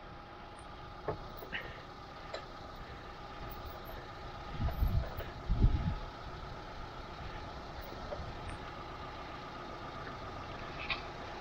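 An off-road 4x4's engine idling steadily. A few short knocks come in the first couple of seconds, and two short, louder low rumbles about five seconds in.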